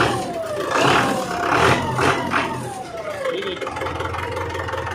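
Belarus 520 tractor's diesel engine running and being revved several times, its pitch falling away after each rev. It has a completely clean sound.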